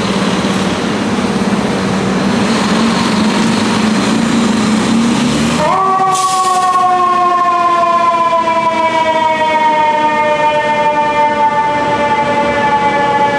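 Heavy fire-truck diesel engine running as the rig pulls away, its drone rising slightly in pitch. About halfway in, a Federal Q2B mechanical siren comes in with a brief hiss, then wails on a single note that sinks slowly as the rotor coasts down.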